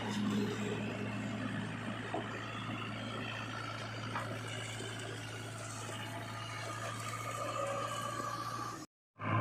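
Heavy diesel engine running steadily at an even speed, with a strong low hum. It breaks off for a moment near the end.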